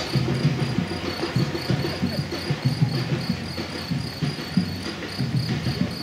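Many runners' footsteps patting on a paved path, with a steady high chirping that repeats evenly throughout.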